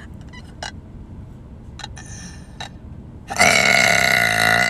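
A young woman's long, loud, deliberate burp, starting about three and a half seconds in and dropping in pitch near the end. A few faint clicks come before it.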